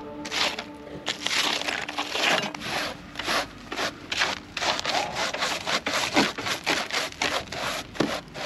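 Footsteps crunching through snow in a steady walking rhythm.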